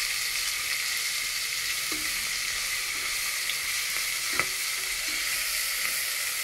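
Ginger-garlic paste sizzling in hot oil with mint leaves and green chillies, a steady frying hiss, while a metal spatula stirs and scrapes the metal pot, with light knocks and one sharp clink a little past four seconds in.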